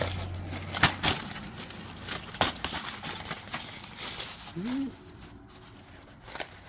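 Scattered clicks and rustles of fishing lure packaging being handled, the sharpest click about a second in, with a brief hum of a voice about two-thirds of the way through.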